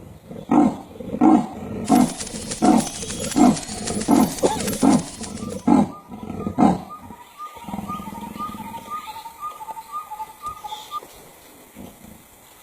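Leopard giving its sawing call: about ten hoarse, rasping grunts, in and out like a saw through wood, in a rhythmic series over the first six or seven seconds. The calls then stop.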